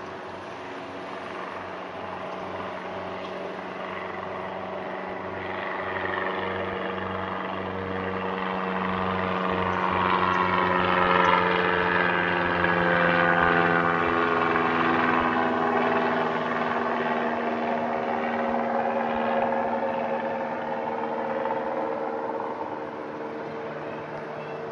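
Low-flying aircraft passing overhead. Its engine and propeller tones swell to a peak about halfway through, then drop in pitch and fade as it moves away.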